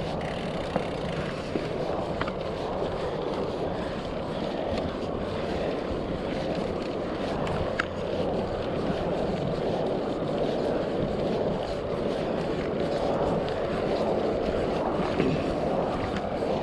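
Full-suspension mountain bike rolling along a dry dirt singletrack, heard from a camera on the rider: a steady rush of tyre noise and wind on the microphone, with a few small clicks and rattles from the bike.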